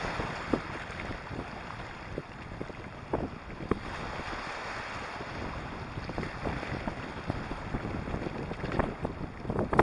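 Small sea waves washing over a pebbly shore close by, with wind buffeting the microphone. A few short ticks stand out from the steady wash.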